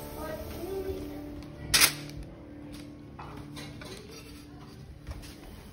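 Quiet background music with steady held notes that fade out about halfway through, and a single sharp clack about two seconds in, with a few fainter taps after it.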